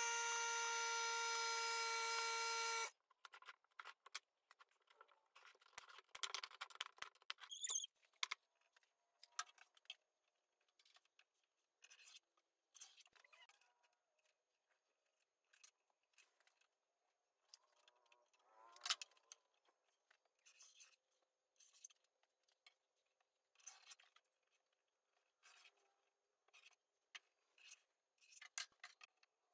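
A steady pitched tone holds for about three seconds, then cuts off abruptly. After that come faint, scattered clicks and short scrapes of a tape measure and pencil marking lines on an MDF panel, with a longer scrape about two-thirds of the way in.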